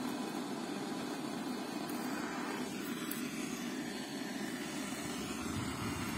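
Steady hiss of untuned FM radio static playing from an MZ M423SP soundbar in FM mode.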